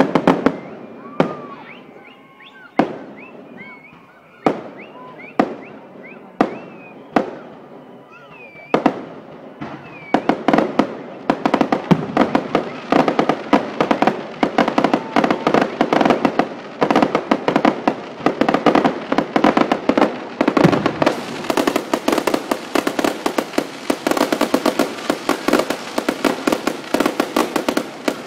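Aerial fireworks bursting: separate loud bangs about a second apart, then, about ten seconds in, a dense, continuous barrage of rapid cracks and bangs.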